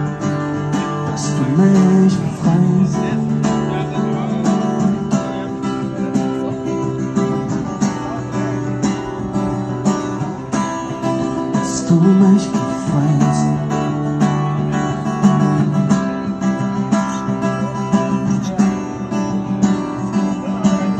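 Acoustic guitar strummed steadily, a busker playing a song.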